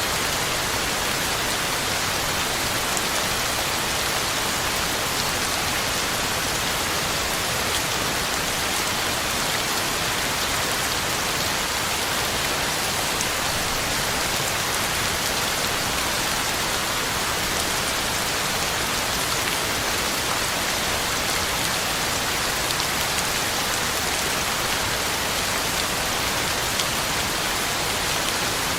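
Heavy rain falling steadily, a dense even hiss with fine pattering of drops on ground and leaves.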